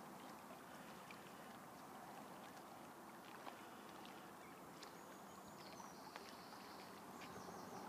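Very faint, even lapping of small waves against the lake shore, with scattered soft clicks and a few faint high chirps about five to seven seconds in.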